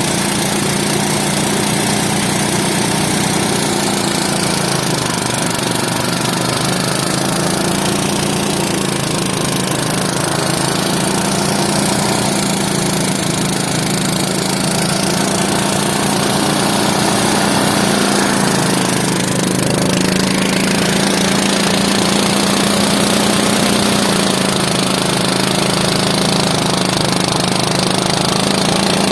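A motor-driven farm machine's engine running steadily, with a constant hum and a dense mechanical clatter over it.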